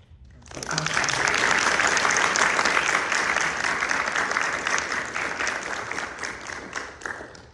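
A small audience clapping. It starts about half a second in, holds steady, then thins out to scattered claps and stops near the end.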